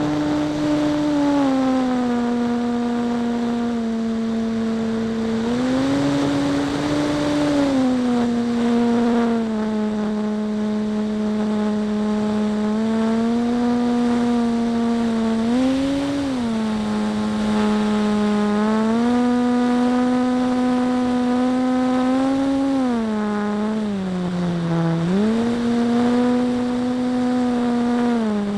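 Radio-controlled warbird model's motor and propeller in flight, heard close-up from an onboard camera: a steady drone whose pitch rises and falls with the throttle, climbing briefly several times and dipping low near the end before coming back up.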